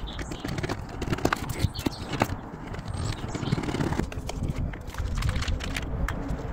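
Plastic scraper scraping old silicone off a caravan locker door in quick short strokes, a run of sharp clicks and scratches that thins out after about two seconds, over a steady low rumble.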